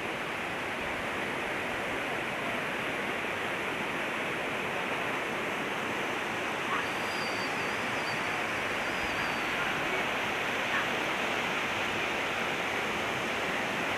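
Muddy floodwater rushing steadily over rocks, an even unbroken rush of water.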